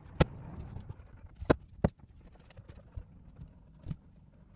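About four sharp snaps at uneven intervals as deer flies that have swarmed into the RV cabin are swatted.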